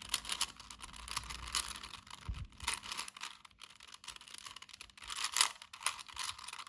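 Plastic 4x4 Rubik's cube being scrambled, its layers turned rapidly by hand in a quick, irregular run of clicks and clacks, with one louder clack a little past the middle.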